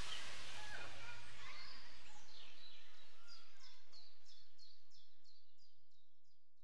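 Birds calling over a steady hiss of outdoor noise that fades out gradually; in the second half one bird repeats a short, high, falling chirp about three to four times a second.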